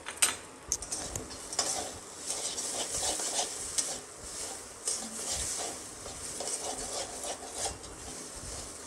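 Metal slotted spatula scraping and stirring mashed-potato stuffing around a steel kadai in repeated irregular strokes, over a light sizzle of the mixture frying in oil.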